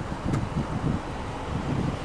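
Subaru Impreza hatchback 2.0i-S's 2.0-litre flat-four engine running, heard at the exhaust tip as a low rumble that swells unevenly. Wind buffets the microphone.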